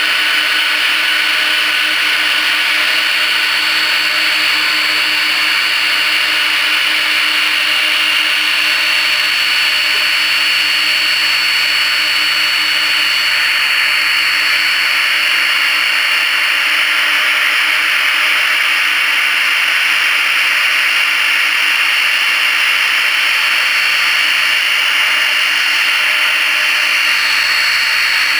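Boeing 767's jet engines running steadily, a rushing noise with a high whine on top.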